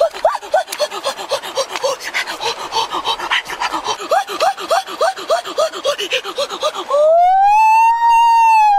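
A man's short excited cries, about four a second, over splashing in a shallow stream. Near the end comes a long, loud yell that rises and then falls in pitch.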